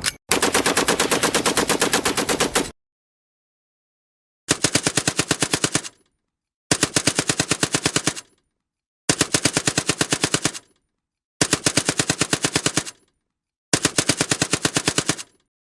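Automatic gunfire from a light weapon: one long burst of about two and a half seconds, then five shorter bursts of about a second and a half each, evenly spaced, each a rapid, steady string of shots.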